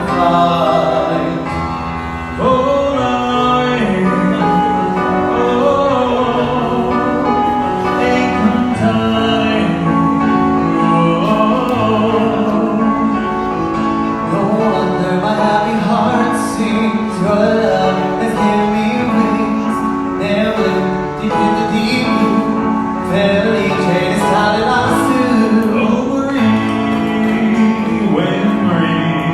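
A live vocal duo singing a classic Italian song in an operatic style over instrumental accompaniment.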